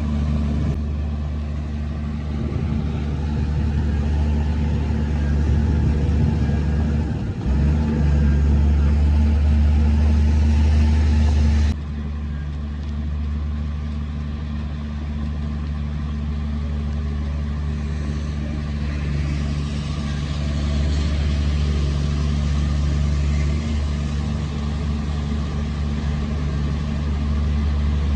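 Heavy diesel earthmoving machinery running steadily, a low engine drone. It gets louder for a few seconds, then drops suddenly about twelve seconds in and carries on at a lower level.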